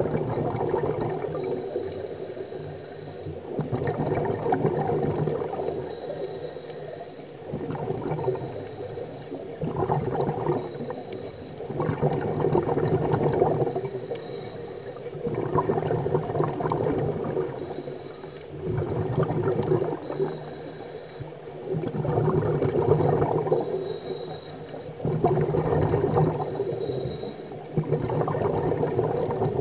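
Scuba breathing heard underwater: a regulator's exhaled bubbles gurgling in swells every two to four seconds, with a faint high hiss between them.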